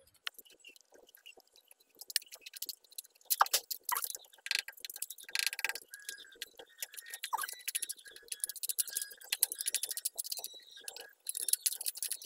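A screwdriver tip scraping and prying at termite-hollowed wood in a window frame, the rotten wood crumbling in quick, irregular scratches and clicks. The scratching starts about two seconds in.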